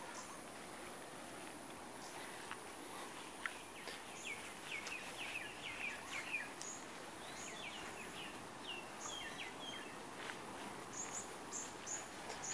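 Birds chirping: a quick run of short falling notes in the middle, then a few higher single chirps near the end. Underneath is a steady outdoor hiss and a thin, high, unbroken insect tone.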